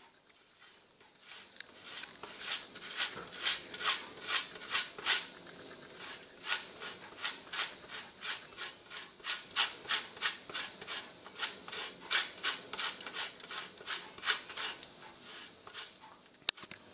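A block of cheese grated on a metal box grater, with rhythmic rasping strokes at about two or three a second and a short lull partway through. One sharp click comes near the end.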